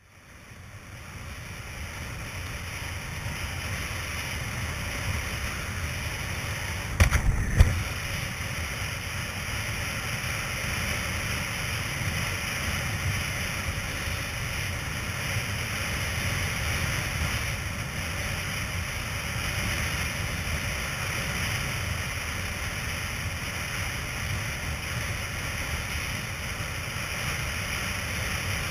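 Wind buffeting the microphone of a camera on a planing windsurf rig, over the steady rush and hiss of water and spray. It fades in over the first few seconds, and a couple of sharp knocks come about seven seconds in.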